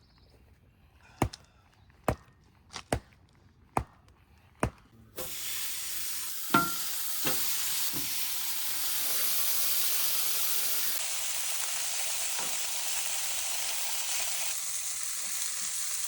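A few sharp taps, about one a second, then about five seconds in food starts sizzling loudly in a hot pan. A sharp metal clank comes soon after, and the frying goes on steadily.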